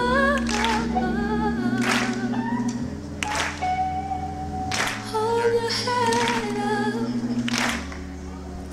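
A song with singing voices over long held bass notes, and a sharp drum hit on the backbeat about every second and a half.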